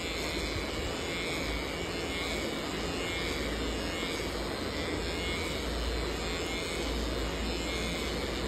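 Corded electric pet clippers running with a steady buzz as they shave a dog's belly fur.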